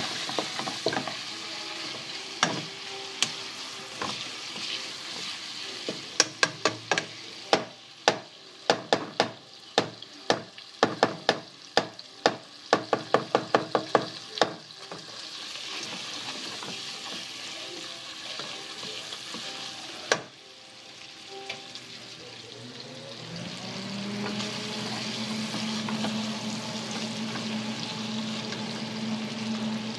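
Chopped bacon frying in a pan with a steady sizzle as it is stirred. In the middle comes a run of sharp clicks, about two or three a second, and near the end a low hum rises and then holds steady under the sizzle.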